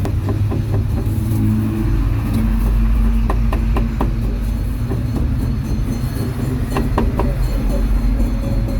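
Steady low rumble of passing motor traffic, with a few sharp knocks about three and a half seconds in and again about seven seconds in.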